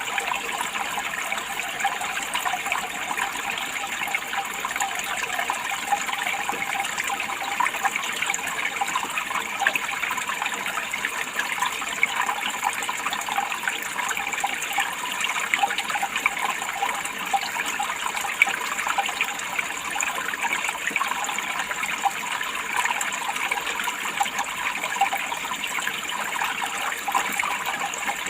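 Running water flowing steadily, a continuous rushing wash with fine splashing and trickling detail.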